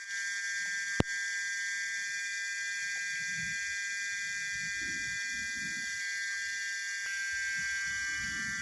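Forest insects droning steadily in a high, many-toned buzz, with one sharp click about a second in.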